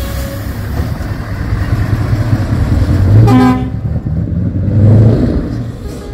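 Scania V8 tractor unit's diesel engine rumbling as the truck pulls away, swelling twice under throttle. A short horn blast sounds about three seconds in.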